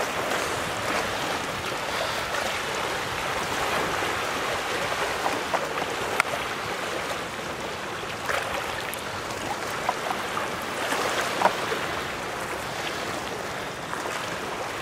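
Small waves lapping and washing in shallow water around a wading angler's legs: a steady wash with scattered small splashes.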